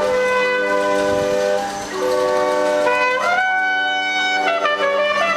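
Music on wind instruments: several held notes sounding together as chords over a steady low note, the chord moving to higher notes about three seconds in.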